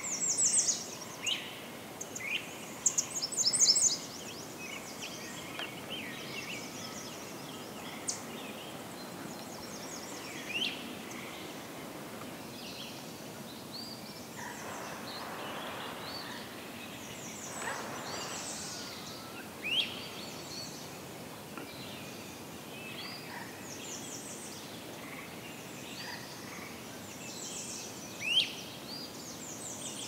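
American redstart singing: short phrases of high, thin, rapid notes, loudest in the first few seconds and recurring about every ten seconds, with sharp rising chirps between them and other woodland birdsong in the background.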